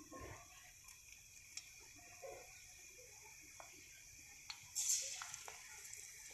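Gram-flour-battered stuffed green chillies (mirchi pakoras) frying in oil in a steel karahi on a low flame: a faint steady sizzle with scattered crackles and pops, flaring louder about five seconds in.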